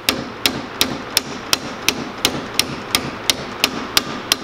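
Hammer tapping a punch at a steady three strokes a second, driving a planet-gear pin into the carrier of an MG overdrive's planet gear assembly.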